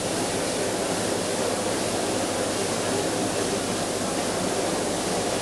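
Steady, even murmur of a large crowd in an indoor arena, with no single voice or sound standing out.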